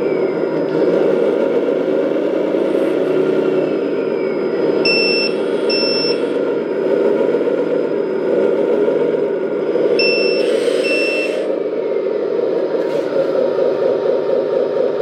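The sound module of a 1/14-scale LESU Benz 6x6 RC dump truck plays a simulated truck engine running steadily. Two pairs of short, high electronic beeps come about five and ten seconds in.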